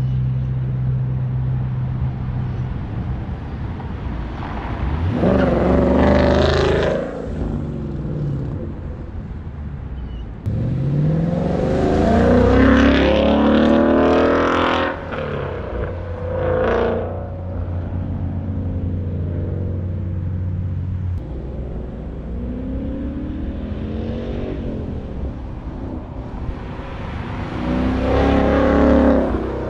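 2015 Ford Mustang GT's 5.0-litre V8 engine accelerating hard several times, the pitch rising with each pull and falling back between, with a steadier drone while cruising in between.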